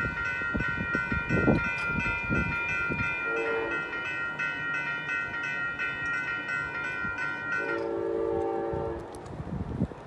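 Railroad crossing bell ringing rapidly and steadily, then stopping suddenly about eight seconds in as the gate arms rise. A low rumble from the train fills the first two seconds. A train horn sounds briefly twice from a distance, once near the middle and again just after the bell stops.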